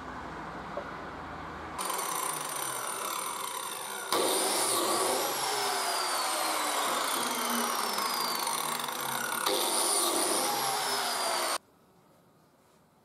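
Biscuit joiner running and plunge-cutting slots into the edge of an ash board: a steady, high motor whine that starts about two seconds in, gets louder about four seconds in with tones that slowly fall in pitch, and stops abruptly near the end.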